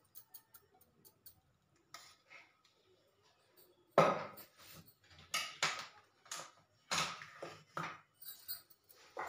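Kitchen utensils and dishes clinking and clattering: a few faint clicks at first, then from about four seconds in a string of sharp knocks, roughly one every half second.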